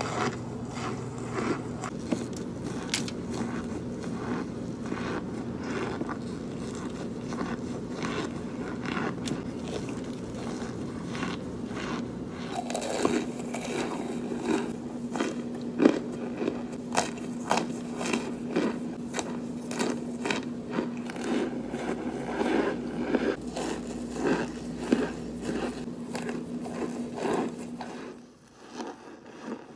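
Biting into and chewing chunks of cornstarch close to the microphone: a dense run of crisp crunches, more separate and louder from about halfway through, over a faint steady low hum.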